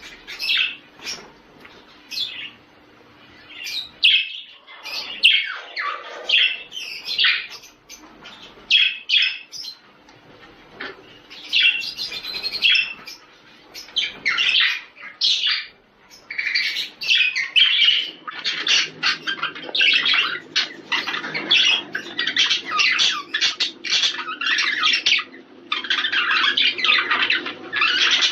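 Male budgerigar courtship warble: a rapid run of chirps, squawky notes and chatter that grows busier and near-continuous in the second half.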